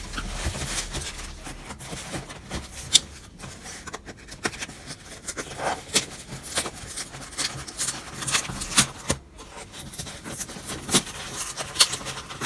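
Clear plastic air-cushion wrapping crinkling and rustling as it is pulled off a cardboard shipping box, with fingernails scraping and picking at the box's taped cardboard edge. It comes as an uneven run of sharp crackles and scratches.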